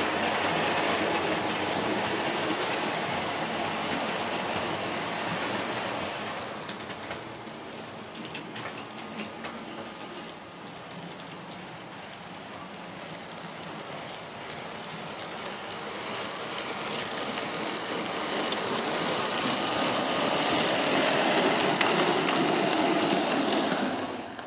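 Model trains running on layout track: a steady rattling rush of wheels and motors. It is loud at first, quieter in the middle, louder again later as a model steam locomotive with coaches passes close, and it cuts off suddenly near the end.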